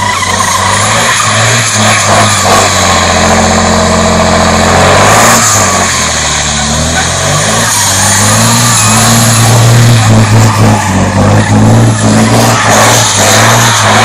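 Race semi-truck's diesel engine revving hard while its rear tyres spin and skid through donuts. The engine pitch drops briefly about six seconds in, then rises again.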